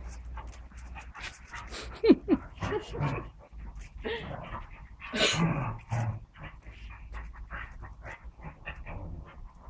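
Two dogs, a beagle and a small white-and-tan dog, play-fighting: panting, short falling whines about two seconds in, and a louder vocal outburst a little after five seconds, over a scatter of light ticks.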